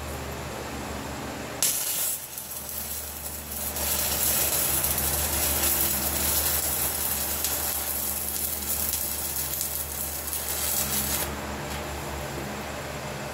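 Arc welding on the steel pin sleeve of a tractor grader blade frame: a steady crackling sizzle of the arc. It starts about one and a half seconds in, falters briefly, then runs on and stops a couple of seconds before the end.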